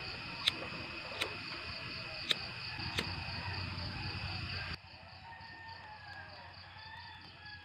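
Crickets trilling steadily in a fast pulsing rhythm, with four sharp clicks of a lighter being struck in the first three seconds. A little before five seconds in the sound drops to a fainter insect trill.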